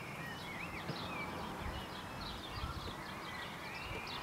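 Several birds chirping and calling in the background, a busy mix of short high chirps and rising and falling whistles.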